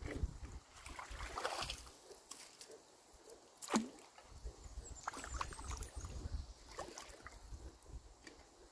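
Shallow water sloshing and splashing as a wader shifts his feet and works a stick through the woody tangle of a beaver dam, with one sharp knock just under four seconds in.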